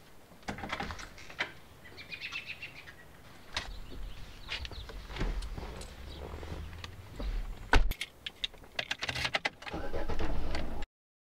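Sharp knocks and clicks of doors and handling, then a car's engine running with a low hum under them. A loud click comes just before 8 seconds, and a quick run of clicks follows as the dashboard radio knob is turned. The sound cuts off suddenly just before the end.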